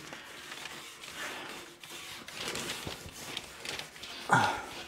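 Soft rubbing and rustling of a cloth being wiped over a bare metal lawn mower deck, degreasing it with acetone, with light knocks as the deck is handled. A brief louder sound about four seconds in.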